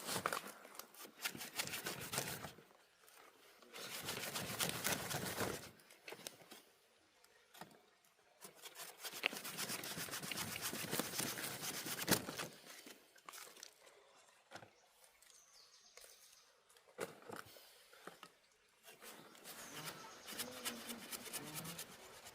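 Repeated bursts of rustling and crinkling, like dry leaves or material being handled, each lasting a second or several, with a few sharp knocks, the loudest about twelve seconds in.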